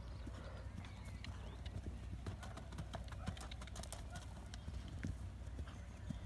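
Hoofbeats of a Connemara-type pony cantering on turf, with a cluster of sharper clicks about two to four seconds in as it takes a log fence, over a steady low rumble.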